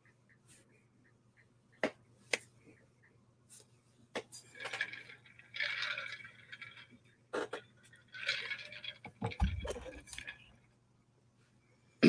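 Two sharp clicks, then several seconds of rustling and handling noise close to a microphone, in short clusters, with a brief low thump near the end.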